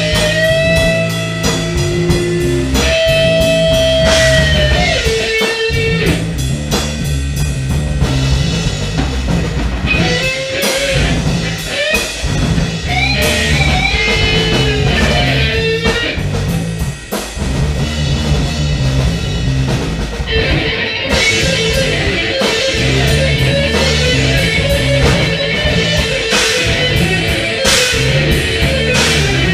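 Live band jamming in a rock-blues groove: a lead guitar plays held notes that bend up and down over bass and a drum kit. From about twenty seconds in, the guitar repeats one high note over and over.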